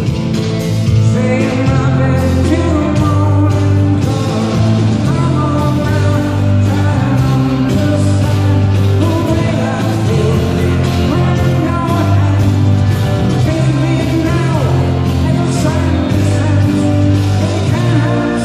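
Live rock music: electric guitar played through an amplifier, with a voice singing over it.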